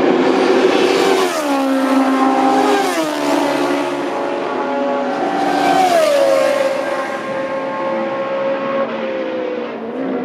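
Historic Formula 1 racing car engines running at high revs. The engine pitch drops sharply three times, about a second in, near three seconds and near six seconds, then holds steady, and fades a little near the end.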